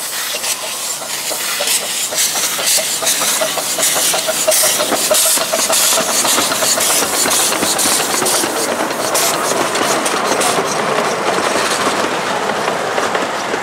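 7¼-inch gauge live-steam model of a D&RGW K-36 locomotive pulling away with a loaded passenger train, its exhaust chuffing in an even rhythm over a steady hiss of steam.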